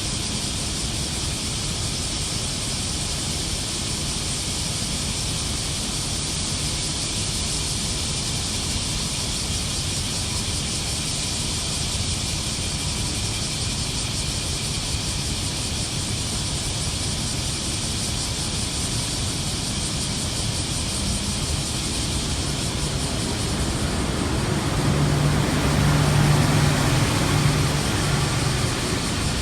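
Cicadas singing in a dense, steady chorus. A low rumble underneath grows louder near the end.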